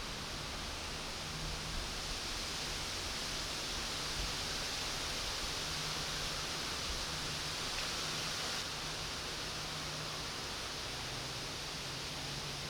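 Steady outdoor background hiss with no distinct events, a little quieter from about eight and a half seconds in.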